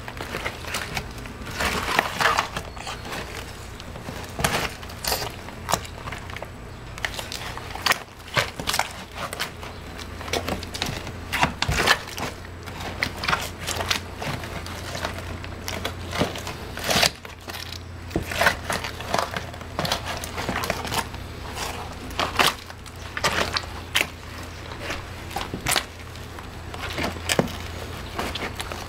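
Nike mesh sneakers being pressed and stomped into wet mud: irregular squelching and crunching as the shoes shift in the soil. A steady low hum runs underneath.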